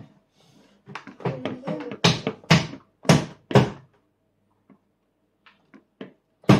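A short stretch of voice, then four loud dull knocks about half a second apart, with a few faint clicks after them.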